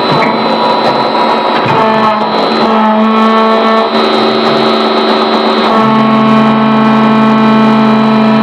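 Hydraulic plastic injection moulding machine running: a steady machine hum whose tones shift in steps several times as the load changes.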